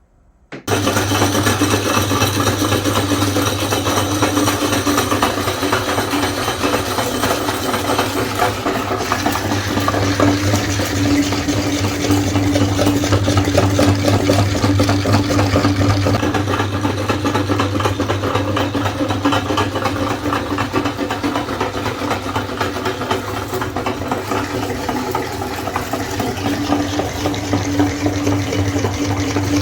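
Electric meat grinder switching on suddenly about half a second in, then running steadily with a low hum while grinding ice cream bars.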